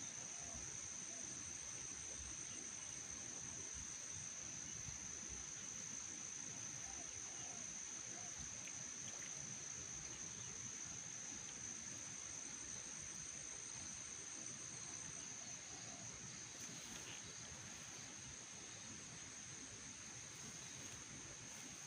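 Insects trilling outdoors: one steady, high-pitched continuous trill, with a fainter pulsing trill above it that stops about four seconds in and later comes and goes, over a low background hiss.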